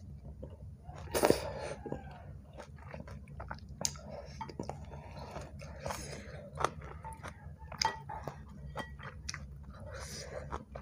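Close-miked eating of bakso: a loud slurp of noodles about a second in, then wet chewing with scattered sharp clicks of wooden spoon and fork against the ceramic bowl, and another slurp near the end.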